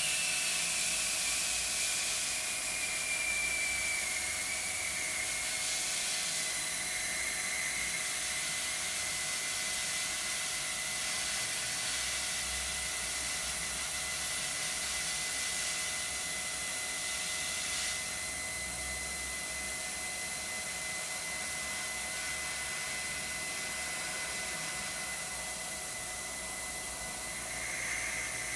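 Airbrush spraying paint with a steady hiss of compressed air and a thin high whistle that slides down slightly in pitch over the first few seconds, then holds. The hiss eases a little about 18 seconds in.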